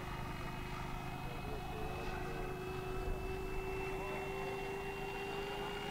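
Brushless electric motor and four-bladed propeller of an FMS F4U Corsair RC scale model in flight overhead: a steady whine that slowly rises a little in pitch.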